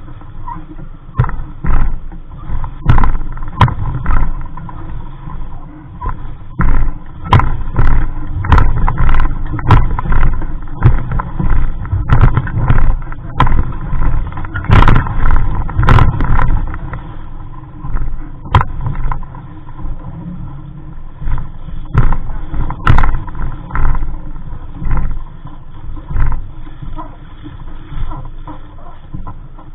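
Wind buffeting the microphone on a small sailboat: a loud, gusting low rumble that rises and falls every second or two, broken by many sharp pops.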